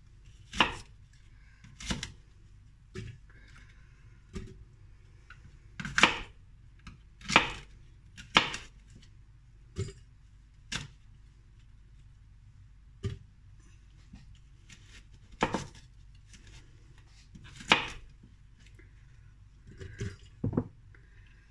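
Kitchen knife cutting unpeeled green apples into chunks: irregular sharp knocks every second or two as the blade goes through the fruit and meets the board, with apple pieces dropped into a glass jug.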